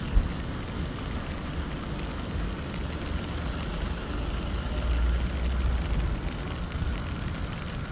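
Steady low rumble of outdoor background noise, with one sharp knock just after the start and a slight swell about five seconds in.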